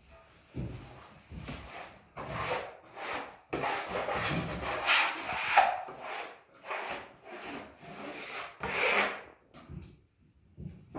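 Plastic wallpaper smoother swept again and again across a pasted sheet of paper wall lining, a scraping rub with each stroke. The strokes stop for about a second near the end.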